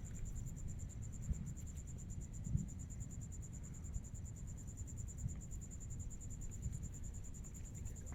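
Crickets chirping steadily as a fast, even, high-pitched pulsing, over a low rumble.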